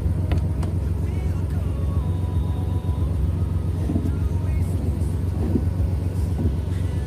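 Nissan 300ZX's V6 engine idling steadily with a deep low rumble while it warms up, the car being finicky if not warmed first.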